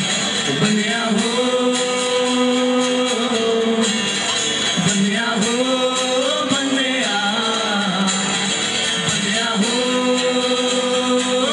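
Live acoustic performance: two acoustic guitars strummed with male singing, the voice holding long notes and sliding between them.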